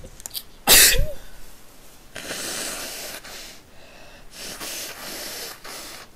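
A person sneezes once, loud and sudden, about a second in; the sneeze is set off by pepper. It is followed by several noisy nose blows, the longest two each lasting about a second.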